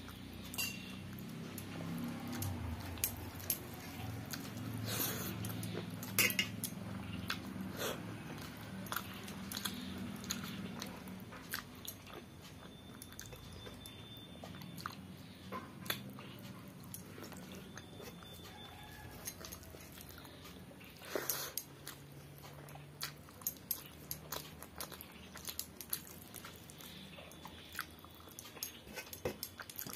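A person eating rice and vegetable curries with the fingers from a metal plate: close chewing and mouth sounds, with many small sharp clicks and taps throughout.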